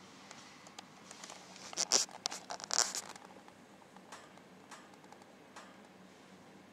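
Siamese kittens stirring and nuzzling on a blanket: soft rustling and scratching of fur and paws on fabric, with a cluster of louder scratchy rustles about two to three seconds in, then a few faint clicks.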